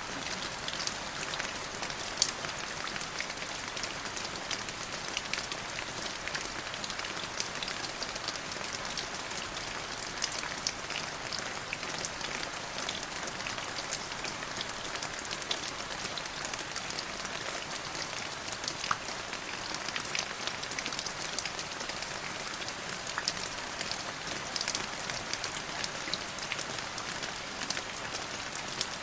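Steady rain falling: an even hiss of rain dotted with many small drop impacts, with a louder single drop now and then.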